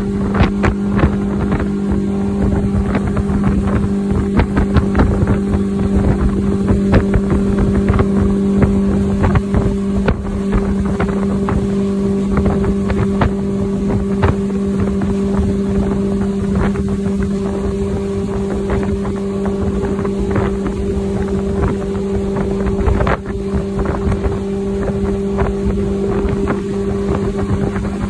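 Motorboat engine running steadily at cruising speed, about 35 mph, a constant drone, with wind buffeting the microphone.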